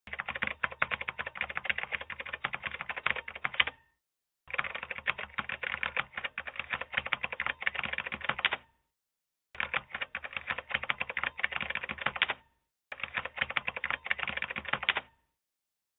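Rapid, irregular clicking from a bicycle, in four bursts of a few seconds each with short silences between: the 'strange noise' the rider is showing.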